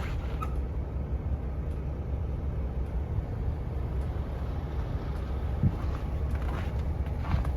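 Strong wind buffeting the microphone: a steady, uneven low rumble, with a brief thump about five and a half seconds in.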